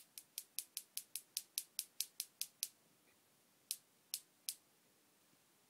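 A quick, even run of about fourteen sharp, high clicks, about five a second, then after a pause of about a second three more clicks.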